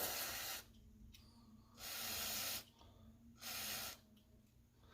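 Aerosol can of carburetor cleaner spraying in three short hissing bursts, about a second apart, into the stove's fuel passages.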